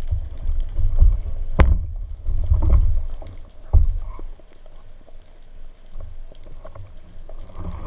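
Underwater water noise picked up by a camera in a waterproof housing on a speargun: uneven low surges as water moves around the housing. There is a sharp click about one and a half seconds in and another knock near four seconds, then a calmer stretch before the surges return near the end.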